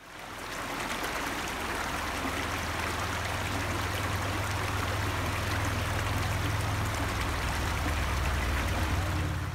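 Shallow mountain creek running over rocks: a steady wash of water noise with a low rumble underneath. It fades in over about the first second.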